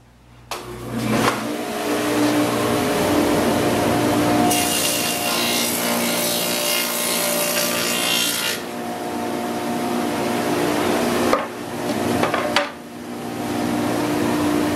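Table saw starting up and running steadily. About four seconds in, a groove is cut into a wood side panel for a drawer runner: the sound turns much brighter and harsher for about four seconds while the board passes over the blade, then settles back to the steady run.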